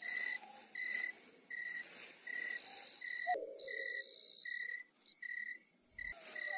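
Night insect chorus of crickets: a steady high trill with a short chirp repeating regularly about every three-quarters of a second.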